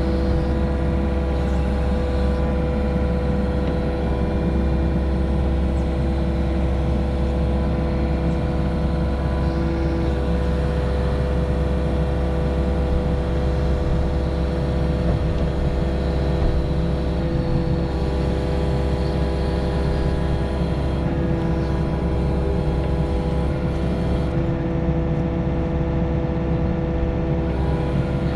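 Mini excavator's diesel engine running steadily at working throttle, a constant even drone with a steady pitched hum that holds without change.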